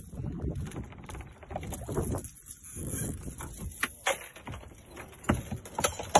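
Irregular wind and water noise aboard a small open boat: choppy water slapping the hull. A few sharp knocks come from about four seconds in.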